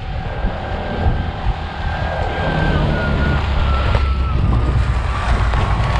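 Wind rumbling on the microphone, growing louder, with a faint thin whine slowly falling in pitch.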